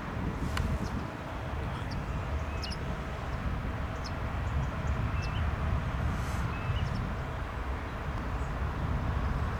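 Distant steady drone of a Cessna 172M's light-aircraft engine, with wind rumbling on the microphone. A few short high chirps are scattered through it.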